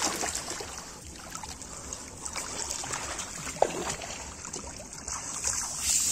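Shallow muddy water sloshing and trickling as hands dig and grope through it along the river bottom, with a brief sharp sound about three and a half seconds in.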